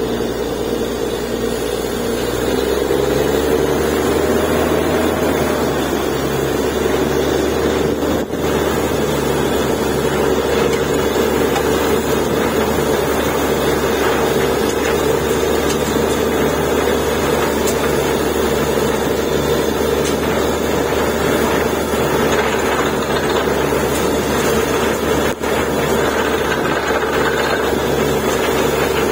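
Truck-mounted borewell drilling rig running under load: its engine and air compressor driving the drill, with air blowing muddy water out of the bore. The steady running has a low, even pulse and gets a little louder about two to three seconds in as drilling gets going.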